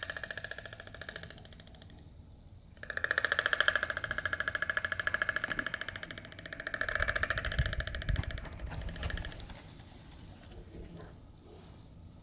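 Oriental storks bill-clattering: the beak snapped open and shut very fast, giving a rapid rattle. A bout trails off in the first second or so, a loud one starts about three seconds in, and another follows about six and a half seconds in, dying away around nine seconds. Adult storks clatter like this in place of calling, because their vocal organ (the syrinx) has degenerated.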